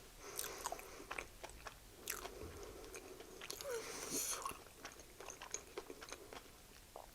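Close-miked chewing of a blackened chicken sandwich: quiet, scattered wet mouth clicks and smacks.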